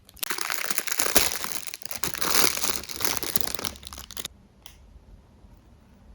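Packaging crinkling and rustling as it is handled, cutting off suddenly about four seconds in.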